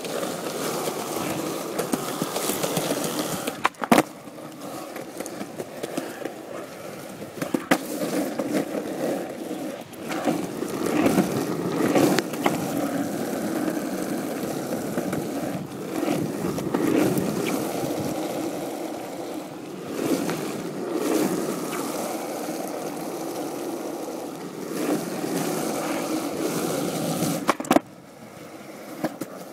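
Skateboard wheels rolling over pavement: a steady rumble broken by a few sharp clacks, dropping quieter near the end.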